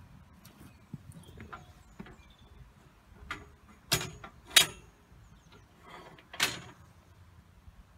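Metal clanks and rattles from a galvanised steel llama chute as it is handled and the llama shifts inside: several sharp knocks, the loudest three close together a little past halfway.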